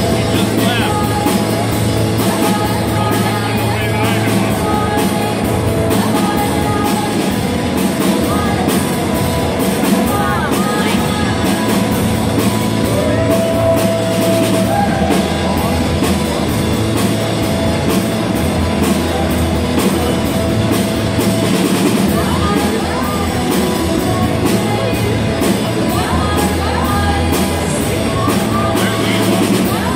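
Live rock band playing a song: drum kit keeping a steady beat under guitars, with a singer's voice.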